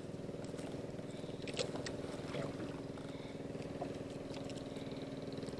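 Small boat engine idling steadily, with a few light clicks of fishing tackle being handled about one and a half seconds in.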